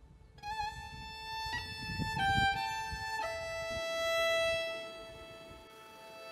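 Background music: a slow melody of long held notes that step from one pitch to the next, the last note held for about three seconds.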